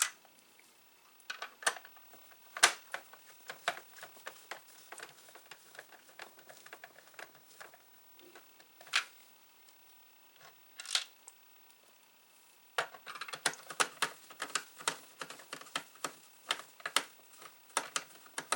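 Irregular clicks and taps of plastic and small metal parts as the Atari SF354 disk drive is fitted back into its plastic case and its screws are set. The clicking becomes much busier about 13 seconds in.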